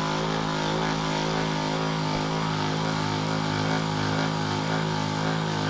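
Steady low mechanical hum with even overtones, holding one pitch.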